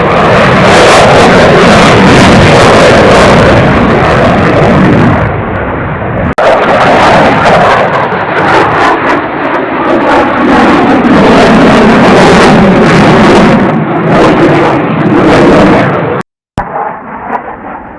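Blue Angels F/A-18 Super Hornet jets roaring past in low, fast passes, very loud throughout. The roar breaks off abruptly twice, once briefly about six seconds in and again near the end, after which it is much quieter.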